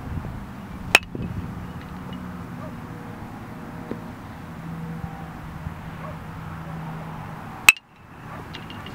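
Baseball bat hitting pitched balls: two sharp cracks with a short ring, about a second in and again near the end.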